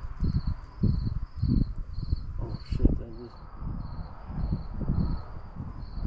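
Crickets chirping in an even, high-pitched rhythm of about two chirps a second, under irregular low rumbles and thuds that are louder than the chirping.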